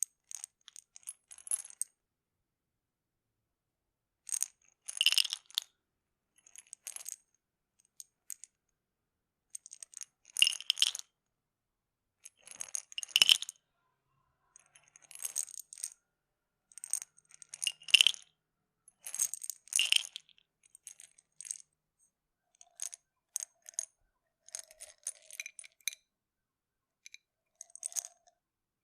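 Pills rattling inside a plastic pill bottle, shaken and handled in short bursts of small hard clicks with silent gaps between them.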